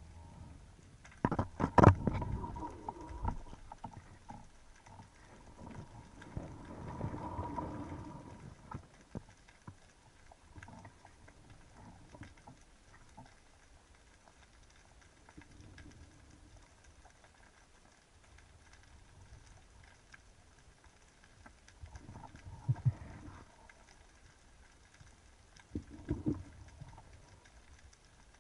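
Underwater sound heard through a camera's waterproof housing while a spearfisher swims with a speargun: muffled knocks and clicks from the diver's movements and gear. There is a burst of sharp knocks about two seconds in, a rustling stretch around seven seconds, and more clusters of knocks near the end, with faint water noise between.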